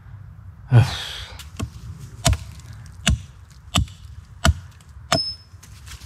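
Hatchet striking an upright wooden log in a regular run of sharp knocks, about one every 0.7 seconds, the last with a brief metallic ring. Just before the knocks comes a short falling vocal sound.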